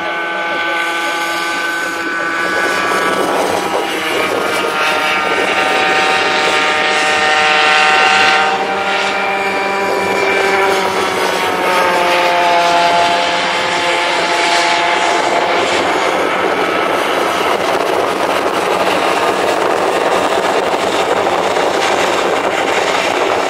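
Several Easykart 50 karts' small two-stroke engines buzzing as they race around the track, their overlapping pitches rising and falling with throttle and speed.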